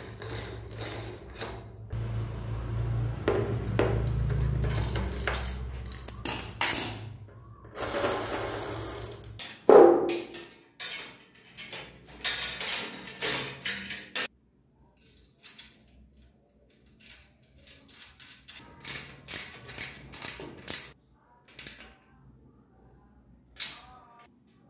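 Metal clicks, ticks and knocks of bicycle parts being handled by hand: first a rear wheel's multi-speed freewheel on its hub, then a caliper brake being fitted to the frame. A low steady hum runs under the first ten seconds, and there is one sharp knock about ten seconds in.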